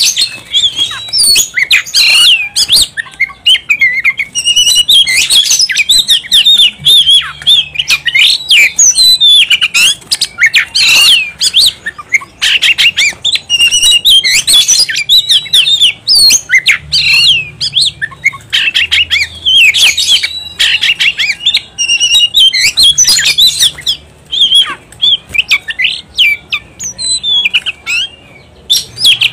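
Male oriental magpie-robin singing without a break: a fast, varied run of short whistled notes and slurs, with a few short harsh notes mixed in.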